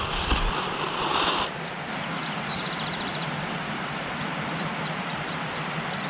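Outdoor ambience: a steady hiss with faint bird chirps and a short trill. In the first second and a half a louder steady hum with a high tone sounds, then cuts off suddenly.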